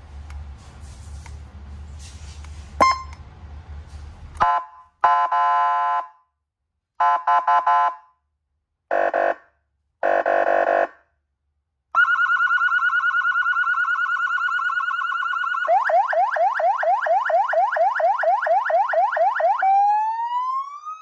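SA5200 electronic siren through a 200-watt horn speaker cycling through its tones. A low hum and a click come first, then five short horn blasts, a steady warbling tone, a fast yelp of about four sweeps a second, and near the end a rising wail.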